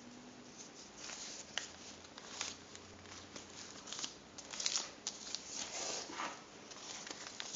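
Folded sheet of paper being handled and pressed: quiet, irregular rustling and crinkling with small taps and clicks, busiest a little past the middle.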